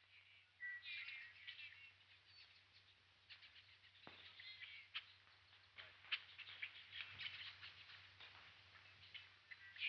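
Faint birds chirping and twittering in a jungle soundscape, with a few short clicks, over the low steady hum of an old film soundtrack.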